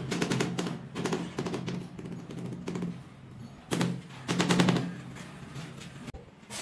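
Rubber mallet tapping a ceramic floor tile to bed it into wet mortar, in several runs of quick taps with short pauses between them.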